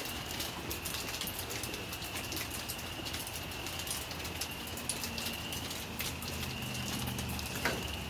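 Light rain with ice flakes falling, many small drops tapping close by, over a steady high-pitched tone that runs throughout.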